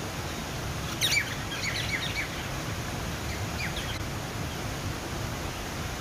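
Small cascade waterfall splashing into a pond, a steady rush of water, with a bird's quick chirps about a second in and a fainter run of chirps a little after three seconds.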